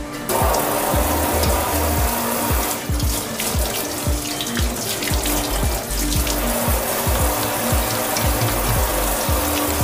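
Kitchen tap turned on at the start, water running steadily from the tap into a stainless steel sink, with hands washed under the stream for a while. Background music with a steady beat plays underneath.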